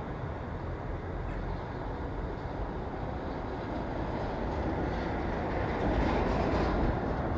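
Street ambience: a steady rumble of passing vehicles, swelling louder about six seconds in.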